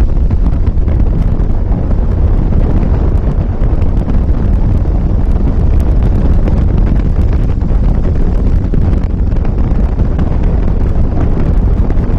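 Wind buffeting the action camera's microphone on a jet boat running at speed over river water: a loud, steady low rumble.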